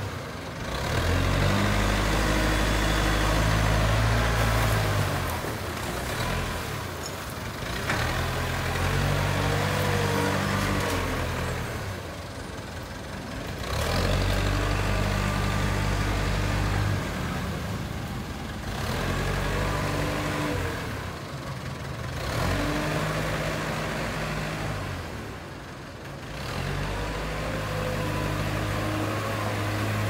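JCB 3CX backhoe loader's diesel engine working under load, its note rising and dropping back every few seconds as the front bucket pushes uprooted stumps and brush.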